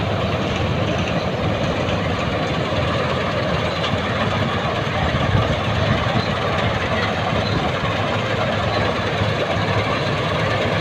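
Preet 987 combine harvester running steadily while harvesting moong: a continuous engine drone mixed with the noise of the cutting and threshing machinery.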